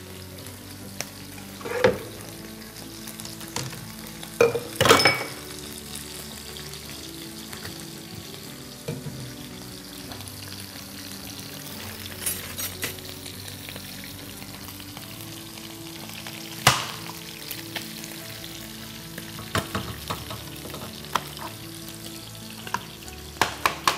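Rib meat frying in fat with vegetables in a pot, a steady sizzle. A few sharp utensil knocks are scattered through it, and a quick run of knife taps on a cutting board comes at the very end.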